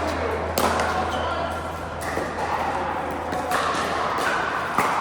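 Pickleball paddles hitting a plastic pickleball in a rally: several sharp pocks at uneven intervals, about half a second to a second and a half apart.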